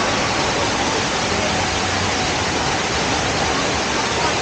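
The Rain Vortex, the large indoor waterfall at Jewel Changi Airport, sends a heavy column of water crashing down as a dense, even, unbroken rush.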